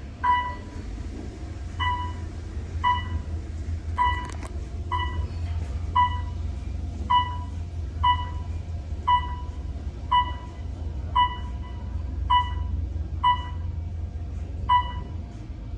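Elevator car descending: a steady low hum from the moving car, and a short beep about once a second as it passes each floor.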